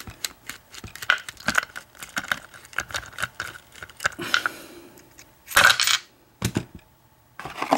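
Small metal clicks and clinks as an American 1100 padlock is taken apart and its core and pin parts come out onto a tray, with a louder clatter of parts a little past halfway.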